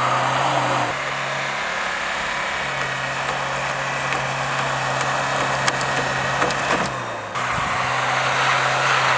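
JAC T8 pickup's engine running at steady revs while the truck pushes through deep snow, over a hiss of snow and tyres with scattered light ticks. The sound changes abruptly about a second in and again near seven seconds.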